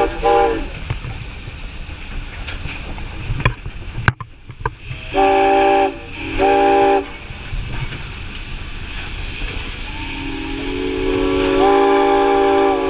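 Steam locomotive whistle blowing: a short toot at the start, two short blasts about five seconds in, then a long blast that swells in near the end, over steady steam hiss heard from the cab.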